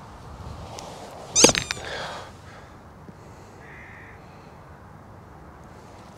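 Golf wedge striking the ball and fairway turf in one sharp strike about a second and a half in, with a crow cawing after it.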